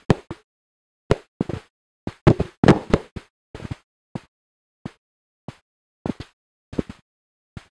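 Bible pages being leafed through right at a handheld microphone, picked up as a string of short knocks and rustles with silence between them, the busiest stretch about two to three seconds in.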